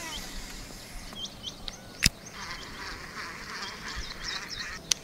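Repeated short animal calls, high chirps throughout. A sharp click comes about two seconds in, followed by a steady rattling whir as a baitcasting reel winds in a lure until near the end.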